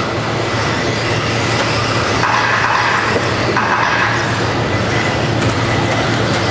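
Electric 1/10-scale 2WD RC buggies racing on an indoor dirt track: motor whine and tyre noise, swelling twice near the middle as cars pass close.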